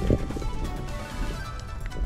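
Background music with steady sustained notes, and a short low thud just after the start.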